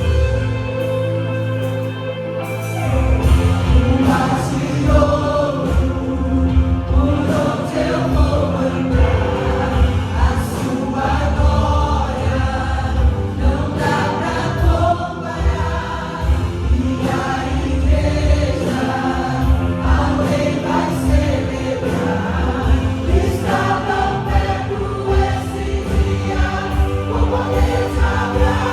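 Gospel worship song sung by a group of voices over a band; held chords open it, and a steady beat comes in about three seconds in.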